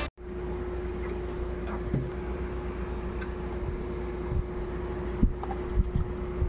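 A steady low hum with a constant faint tone running through it, broken by a few short soft knocks about two, four and five seconds in.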